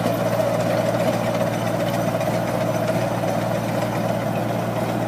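Tractor engine running steadily while it drives a rear-mounted rotary ditcher cutting a trench through soil.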